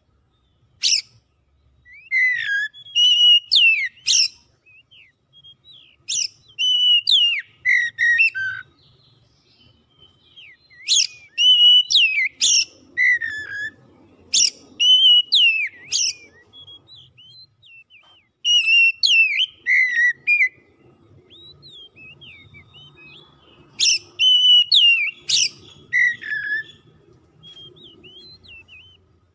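Male oriental magpie-robin singing: loud whistled phrases of sharp upward-flicking notes and clear falling whistles, in bursts of a second or two with short pauses between them.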